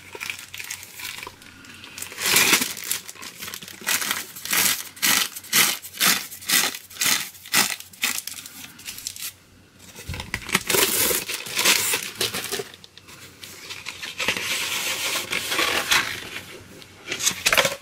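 Plastic or paper wrapping crinkling and tearing as a poster is unwrapped by hand, with a run of quick rustles, two or three a second, in the middle.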